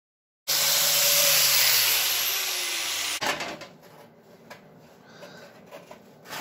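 Angle grinder grinding bare steel on a tractor cab door panel, starting abruptly and cutting out about three seconds in. After it stops, a few light knocks as the metal panel is handled.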